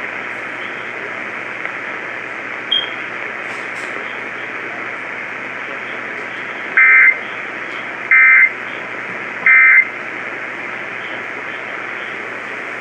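Three short EAS end-of-message data bursts over steady radio hiss, each a fraction of a second long and about a second and a half apart, starting about seven seconds in. They are the SAME code that signals the end of the warning broadcast.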